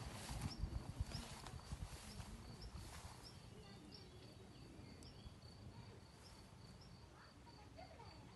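A cricket chirping faintly and steadily in the grass, a few evenly spaced high chirps a second. In the first couple of seconds it is joined by low thuds and rustling of footsteps through the grass.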